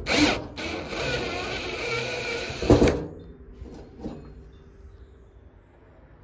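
Cordless drill-driver running for about three seconds, driving a screw out of the wooden rafter that holds the light fixture, with a sharp knock as it stops. A few faint clicks follow.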